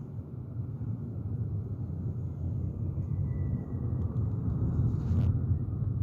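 Jet airliner engine rumble, deep and steady, growing gradually louder as the aircraft nears. A brief click about five seconds in.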